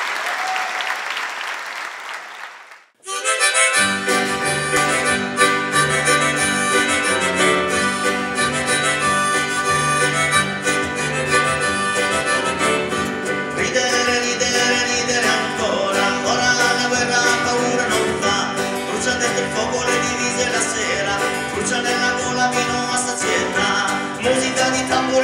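Applause dies away over the first few seconds, then a small live acoustic band starts playing: acoustic guitar and piano with a cajon keeping the beat.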